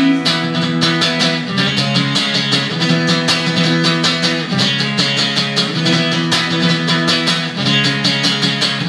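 Acoustic guitar strummed in a steady, fast rhythm, with chords ringing and changing every second or two.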